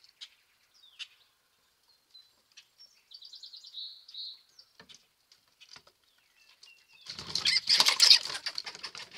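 Birds chirping lightly, with a short rapid trill about three seconds in, then a loud flurry of wingbeats about seven seconds in as a bird flaps up off the deck.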